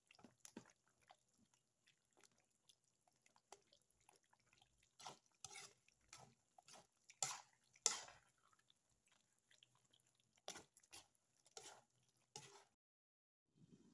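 Faint stirring of a thick menudo stew with a metal spoon in a nonstick pan: irregular soft wet squelches and small scrapes and clicks of the spoon against the pan, two louder ones about halfway through, cutting off suddenly near the end.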